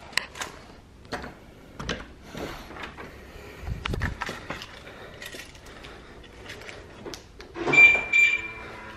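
Handling noise of a door and its lock, then footsteps, with scattered clicks and knocks and a dull thump about four seconds in. Near the end come two short high electronic beeps about half a second apart, the loudest sound.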